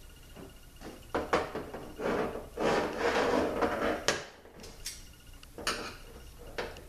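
Scraping, rubbing and several sharp metallic clicks of a screwdriver and hands working on an aluminium 5L40E transmission valve body while a valve stopper is pushed in against heavy springs. The sharpest clicks come a little after one second and about four seconds in.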